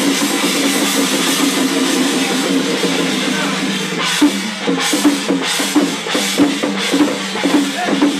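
Chinese temple drum and percussion playing loudly, a dense clatter that settles into a steady beat of about two to three strikes a second from about four seconds in.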